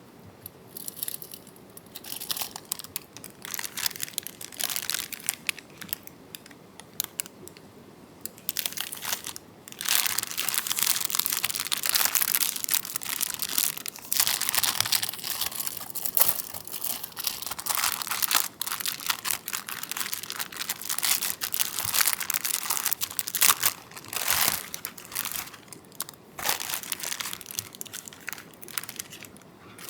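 Crinkly packaging being handled and crumpled close by, a busy run of rustling and crackling in irregular bursts that is loudest and densest through the middle.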